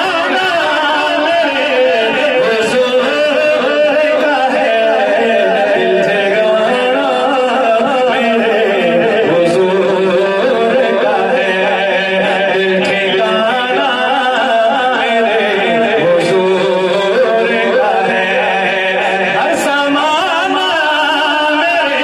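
A man singing a naat, an Urdu devotional poem, into a microphone, his voice in long gliding melodic lines.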